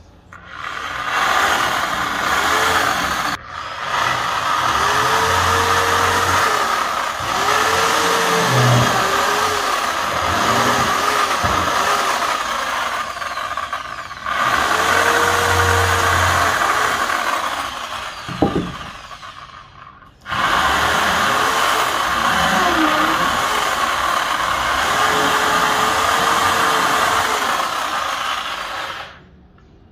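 Corded electric drill boring into a wooden plank. It runs in four long stretches with short stops, and the motor's pitch dips and recovers as the bit bites into the wood.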